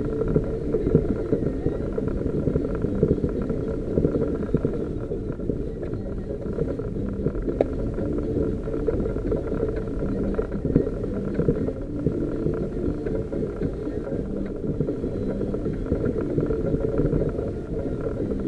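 Off-road 4x4 driving slowly along an unsurfaced green lane, heard from inside the cab: a steady low engine and tyre rumble, with a few short knocks.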